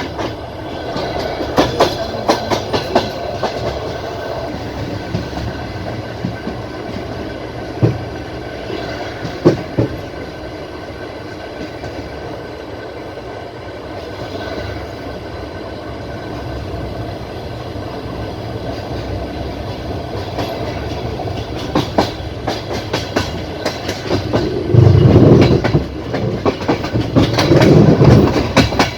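Passenger train carriage rolling along the track: a steady rumble with the wheels clicking over rail joints. Near the end the rumble grows louder and heavier for a few seconds.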